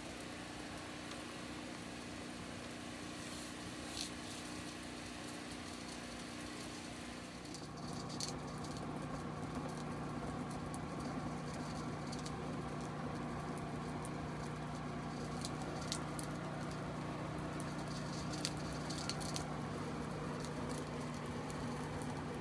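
Loose-fill insulation blower running, with a steady hum of air and insulation rushing through the hose and scattered light ticks as pieces strike. The hum shifts to a lower, slightly louder tone about seven and a half seconds in.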